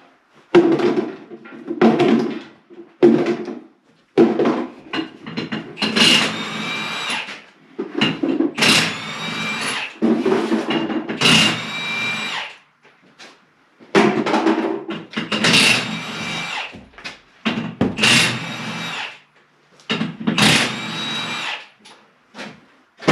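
Impact wrench running in about ten short bursts of a second or two each, with a steady whine, spinning off the skid steer's wheel lug nuts.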